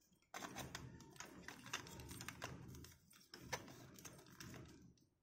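Faint handling noise as a plastic doll's clothes are pulled off: light rustling with many small, quick clicks.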